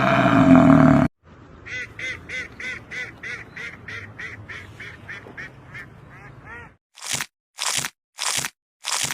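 A loud animal sound breaks off about a second in. It is followed by a string of short, pitched bird calls, about three a second, that slow and fade over some five seconds. Near the end come short crunching bursts, a little under one a second.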